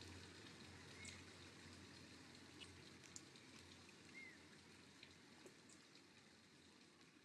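Near silence at the tail of a music track: a faint hiss with scattered soft ticks and a few small chirps, slowly fading out.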